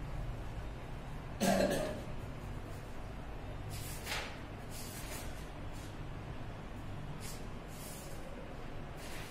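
A single short throat sound, like a cough or snort, about a second and a half in, over a steady low hum. A few faint sniffs or breaths follow.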